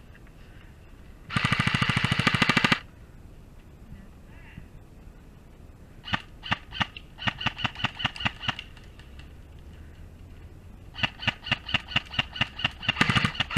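Airsoft guns firing: a loud, rapid full-auto burst lasting about a second and a half, starting about a second in. Two strings of rapid shots follow, about six a second, one in the middle and one near the end.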